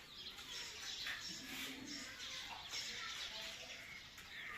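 Green parrots chattering, with a run of short, overlapping calls.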